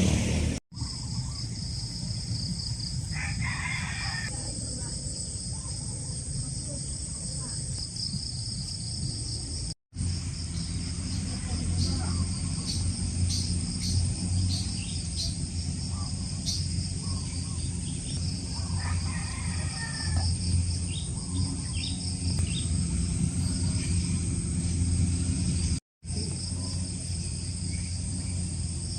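Outdoor ambience of steady high insect trilling over a low hum, with a rooster crowing about three seconds in and again near the twentieth second.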